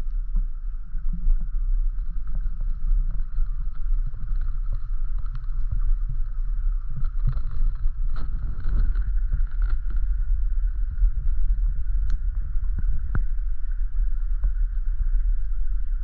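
Low, gusting rumble of wind buffeting the microphone, over a steady thin high hum and scattered light ticks.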